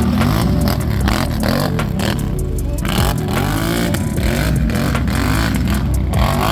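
An ATV engine revved up and down over and over, its pitch climbing and falling several times.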